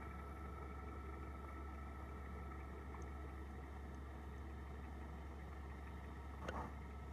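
A steady low hum with a faint high-pitched tone over it, and a couple of light clicks near the end.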